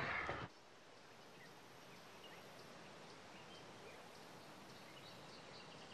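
Faint outdoor ambience with a few faint bird chirps, after a short burst of noise that cuts off abruptly about half a second in.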